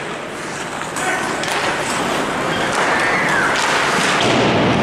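Ice hockey play: skate blades scraping the ice and several sharp clacks of sticks and puck, over spectators' voices.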